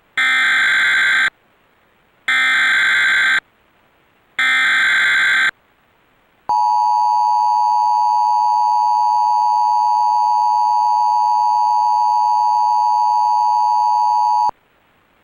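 Emergency Alert System broadcast on cable TV: three short bursts of the buzzing SAME data header, about a second each, then the steady two-tone attention signal (853 and 960 Hz) held for about eight seconds and cut off sharply. The tones announce a tornado warning.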